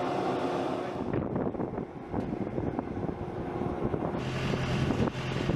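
Aircraft carrier flight-deck noise: a steady rush of wind on the microphone and distant machinery. About four seconds in, the noise grows fuller and a steady low hum starts.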